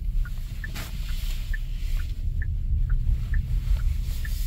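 Genesis GV80 right turn-signal ticking about twice a second over low road and cabin rumble, with no radio to be heard: the car's audio cuts out whenever the indicator is on, a fault in this car.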